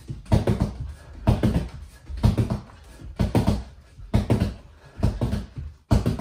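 Heavy punching bag being struck in quick flurries of thuds, about one flurry a second.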